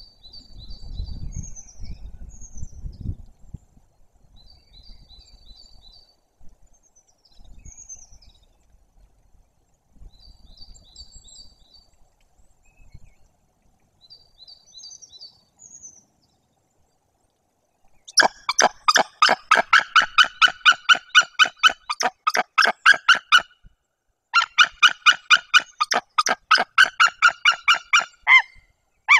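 Small songbirds sing faintly at first. About two-thirds of the way in, a white-tailed eagle breaks into loud, rapid series of yelping calls, about five a second, with one short pause. This is alarm and territorial calling at the nest while an intruding adult eagle is about.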